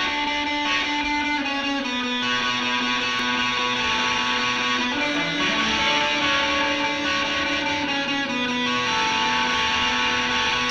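Electric guitar playing slow, sustained chords that ring out and change every second or two, with no drums.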